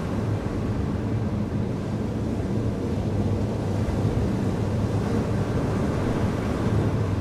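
A steady low rumbling wash of noise, like wind and surf, with no breaks or separate events.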